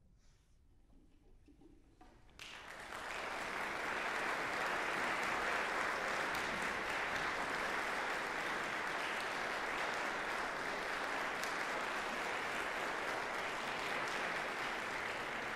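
Audience applauding in a concert hall, breaking out suddenly about two seconds in after near silence and then holding steady.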